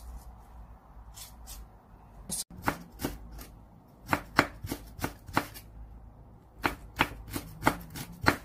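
Chef's knife slicing red and green chili peppers into thin strips on a wooden cutting board: a run of sharp knife strikes on the board, about three a second, starting a couple of seconds in after a few faint taps.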